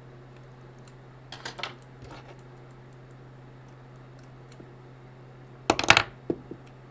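Small metal clicks and clinks from clarinet keys, a hinge rod and repair tools being handled on a workbench: a few light clicks about a second and a half in, and a louder cluster of clinks near the end.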